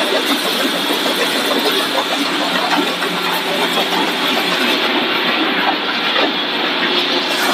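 Puffed-snack extrusion production line running: steady machinery hum with a dense, continuous clatter and hiss.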